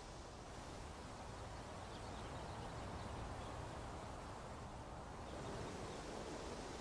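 Faint wind ambience: an even, airy hiss over a low rumble, swelling slightly partway through.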